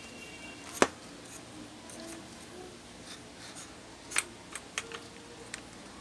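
Sharp clicks and light knocks of a stand fan motor's metal housing being handled and fitted together: one loud click about a second in, then a cluster of smaller clicks between about four and five and a half seconds.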